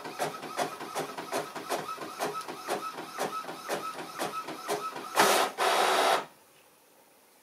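Epson inkjet printer printing a sheet, its print head shuttling back and forth in a regular rhythm of about four passes a second. About five seconds in comes a louder rush lasting about a second, then the printer stops.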